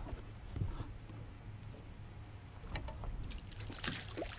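Small hooked fish splashing and thrashing at the water's surface beside a boat's hull as it is brought to the boat, in a cluster of sharp splashes over the last second and a half, over a steady low rumble.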